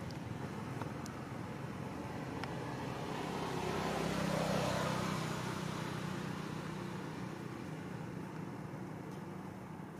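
A road vehicle passing by, its engine growing louder to a peak about halfway through and then fading away.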